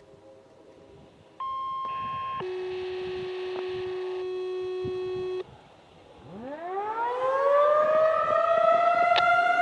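Two steady electronic tones, a short higher one and then a lower one held for about three seconds. Then a Federal Signal 2001-SRN siren starts winding up, its pitch rising steeply and levelling off as it grows louder.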